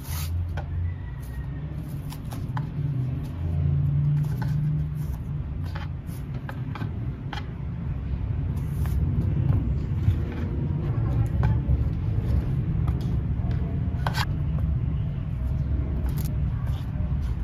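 Scattered clicks and light knocks of kitchen utensils and dishes being handled over a steady low rumble. One knock about fourteen seconds in rings briefly.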